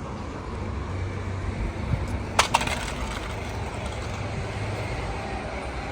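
Steady low rumble of city street traffic, with two sharp clacks in quick succession about two and a half seconds in.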